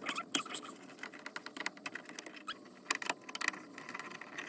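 Irregular small clicks and clinks of a screwdriver working loose the grab-handle covers, screws and clips of a car's interior headliner trim.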